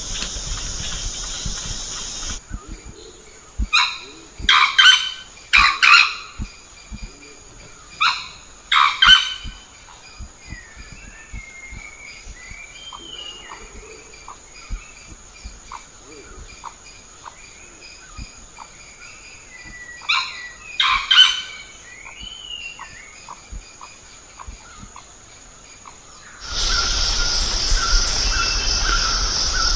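Sri Lankan junglefowl crowing: short, harsh multi-note calls in clusters, several about four to nine seconds in and a pair about twenty-one seconds in, with faint chirps of small birds between them. A steady insect chorus sounds at the start and comes back near the end.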